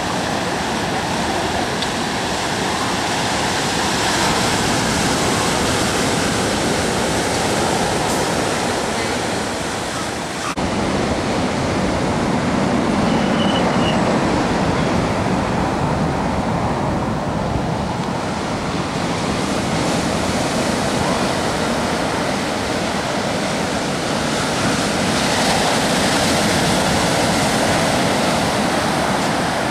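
Ocean surf breaking and washing on a sandy beach: a steady rushing noise, with a brief dip about a third of the way through.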